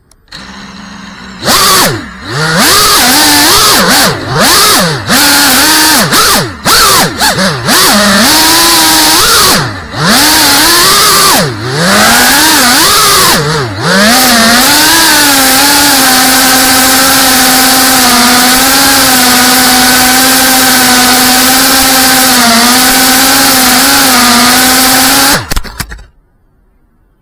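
GEPRC CineLog35 cinewhoop's four brushless motors spinning ducted propellers, heard close up through the onboard camera's microphone: a loud whine that starts about a second in, swings up and down in pitch with the throttle for the first fourteen seconds or so, then holds a nearly steady hovering pitch until it cuts off suddenly near the end.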